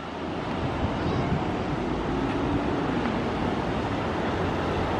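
Ocean surf breaking and washing over a rocky shoreline, a steady rushing sound, with wind rumbling on the microphone.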